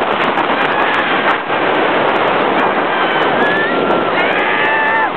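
Steel roller coaster train running at speed, heard on board as a loud, steady rush of wind on the microphone and track noise. In the last couple of seconds, drawn-out high shrieks that bend in pitch rise over it.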